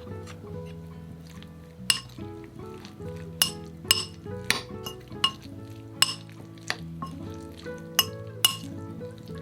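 Kitchen utensils clinking against dishes in several sharp, irregular strikes, over soft background music.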